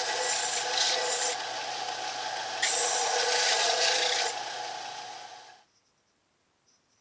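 Small benchtop belt sander running with a steady motor hum while a walnut knife handle is pressed against the sanding belt, giving a hissing sanding rasp twice: at the start and again about three to four seconds in. The sound stops abruptly about five and a half seconds in.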